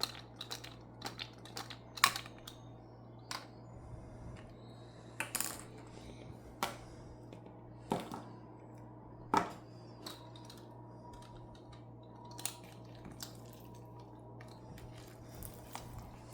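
Irregular light clicks and taps of small plastic toy figures being handled during slime play, over a faint steady low hum.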